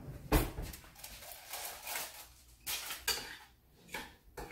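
Kitchen clatter: a handful of short knocks and clinks of dishes and utensils being handled on the counter, the loudest about a third of a second in.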